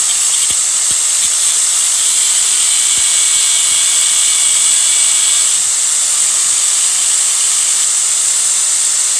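Power grinder running steadily against the stub of a broken steel intake manifold bolt, grinding away the bolt material.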